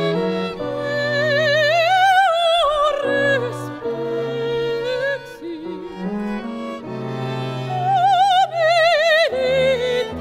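Operatic soprano singing with wide vibrato over a string quartet accompaniment. She holds two long, climbing high notes, one about two seconds in and one near the end.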